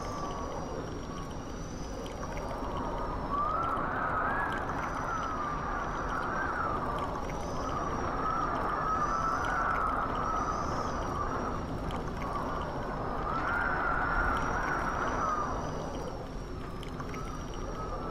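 Rushing-wind sound effect of a G-force air blast: a low steady rumble of air with wavering, whistling howls rising and falling on top.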